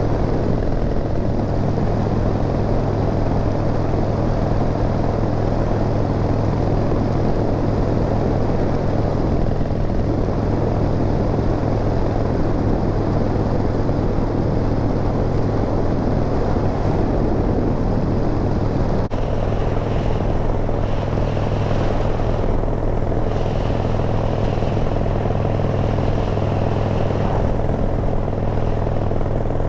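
Harley-Davidson motorcycle's V-twin engine running steadily at cruise, with a constant deep hum and no shifting or revving.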